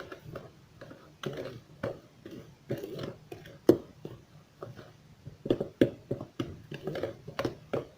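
Spoon and plastic yogurt tub: irregular soft clicks and taps as yogurt is scooped out into the basbousa batter, with one sharper click a little before the middle.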